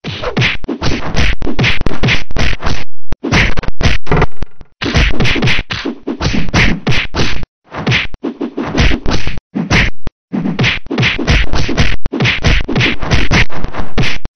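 Cartoon fight sound effects: rapid runs of punch and kick hits, one blow after another, broken by a few short gaps.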